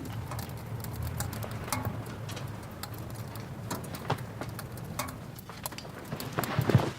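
Irregular light taps and clicks over a low steady hum, with a short cluster of louder knocks near the end.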